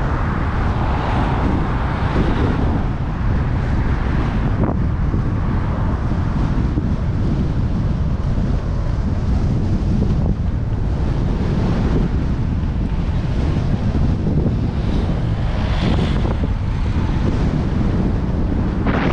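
Strong wind buffeting a cyclist's camera microphone: a loud, steady low rumble that does not let up.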